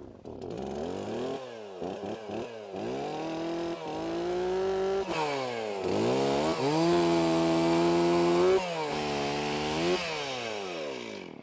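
Chainsaw revving up and down several times, then held at high speed for a couple of seconds as it cuts through a log, before dropping back down near the end.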